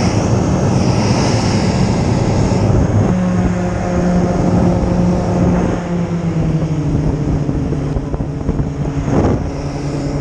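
Inshore rescue hovercraft running loudly on sand, its engines and propeller fans making a steady noise whose pitch shifts a few times as it gets under way.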